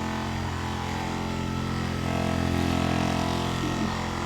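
Electric percussion massager running against the body with a steady buzzing hum, a little louder from about two seconds in.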